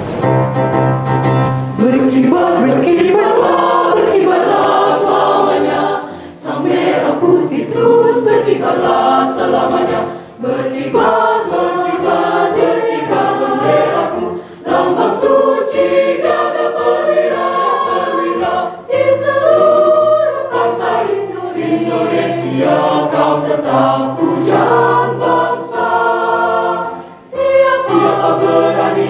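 Mixed choir of women and men singing together in parts, with brief pauses between phrases.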